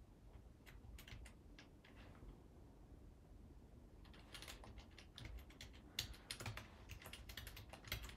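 Typing on a computer keyboard: a few scattered keystrokes at first, then quick, steady typing from about halfway through.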